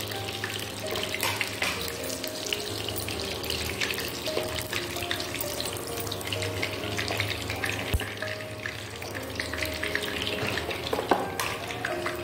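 Battered chicken pieces frying in hot oil in a wok, with a steady crackling sizzle. There is one sharp knock near the end.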